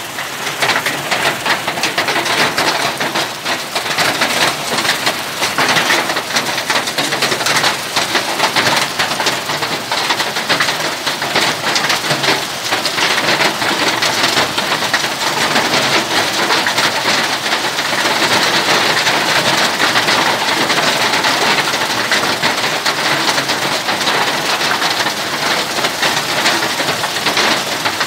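Small hailstones pelting wet concrete ground: a dense, steady patter of countless tiny ice impacts.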